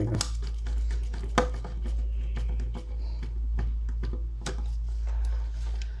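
Scattered light clicks and handling noises as wire ends are fitted into a contactor's screw terminals and tightened, over a steady low hum.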